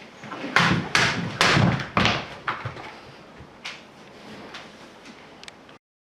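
A run of sharp cutting strikes with thuds: a katana cutting through rolled tatami-mat targets in test-cutting practice, four loud cuts close together, then a few lighter knocks. The sound cuts off abruptly near the end.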